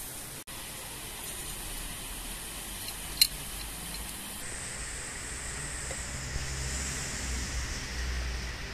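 Water pouring from a kettle into a small porcelain teapot onto loose black tea leaves: a steady rushing hiss in the second half. About three seconds in, a single sharp click.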